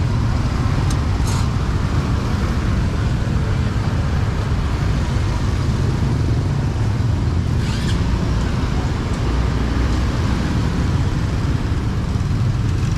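Steady sizzle of Chinese fried dough sticks deep-frying in a large wok of oil, over a constant low rumble of motorbike traffic, with a couple of light clicks.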